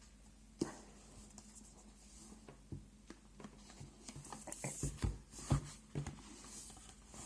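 Hands moving packaging and a cardboard box: faint scrapes and rustles with scattered light taps, and a few louder knocks about five seconds in.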